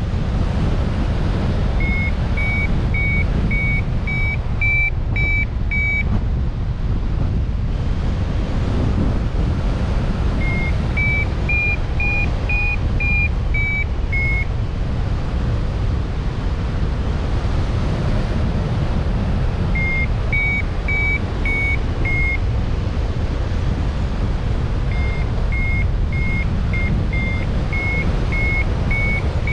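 Steady low rumble, with four runs of short, clear, whistled notes repeated about twice a second, each run drifting slightly up and down in pitch.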